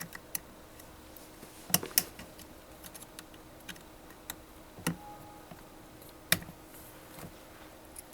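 Sharp metal clicks and knocks, irregular and a second or more apart, loudest three near 2 s and 6 s in: a small screwdriver and the hinge pin and C-clip at the footrest actuator's rear mounting bracket being worked free.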